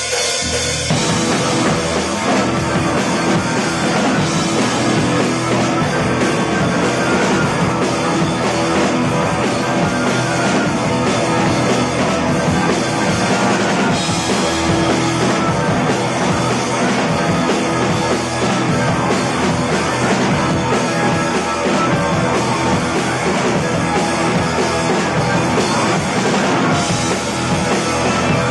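Loud rock music with a full drum kit and electric guitar, the concert's opening intro, with the cymbals growing brighter about halfway through and again near the end.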